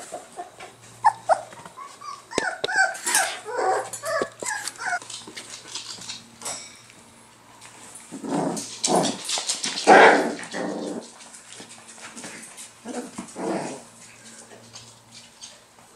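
Four-week-old whippet puppies playing and play-fighting. A run of short, high yips and squeals over the first few seconds, then louder growling scuffles from about eight to eleven seconds in, and again briefly near fourteen seconds.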